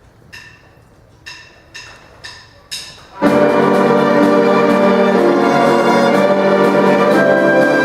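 A small bell-like percussion instrument is struck five times, each ringing note fading quickly. About three seconds in, the full orchestra comes in loudly with brass and plays on in sustained chords.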